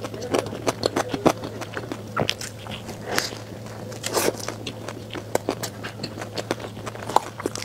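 Close-miked biting and chewing of a cream-filled pastry with a flaky layered crust: a string of irregular clicks and crunches, a few louder bites standing out about once a second.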